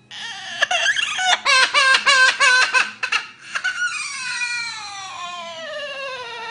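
Parrot imitating a crying baby: a run of quick, choking sobs, then one long wail that slides steadily down in pitch.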